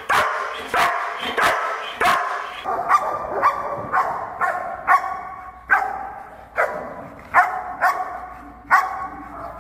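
German Shepherd protection dog barking repeatedly, short loud barks about one to two a second.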